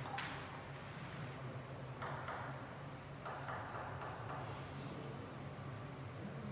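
Table tennis ball clicking off the bats and the table during a serve and rally, with irregular sharp ticks, most of them bunched between about two and four and a half seconds in. A steady low hum runs underneath.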